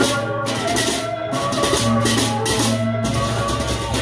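Sasak gendang beleq ensemble playing: the large double-headed gendang beleq drums struck with hand cymbals (ceng-ceng) crashing over steady ringing tones. The cymbal wash breaks off briefly a few times, once about a second in and again near three seconds.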